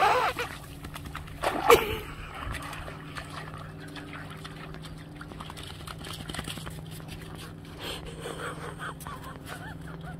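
A dog's paws splashing in slushy meltwater on thin river ice: a loud splash at the start and another about a second and a half in, then quieter sloshing.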